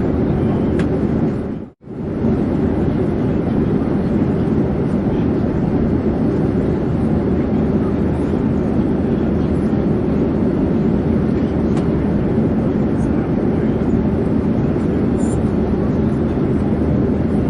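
Airplane in flight: a steady, deep engine and airflow drone. It cuts out briefly about two seconds in, then resumes unchanged.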